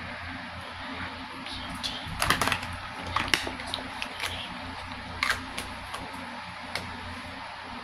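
Small plastic clicks and taps from handling a cosmetic tube and container: a quick cluster about two seconds in, then a few single clicks, over a steady low hum.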